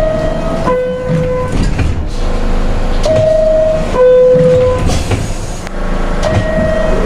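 R62A subway car's door chime sounding three times, each a steady high note stepping down to a lower one, over the low rumble of the train.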